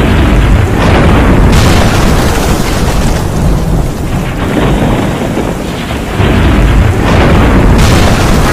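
Thunderstorm: steady rain under loud rolling thunder, with a fresh thunderclap at the start and another about six seconds in.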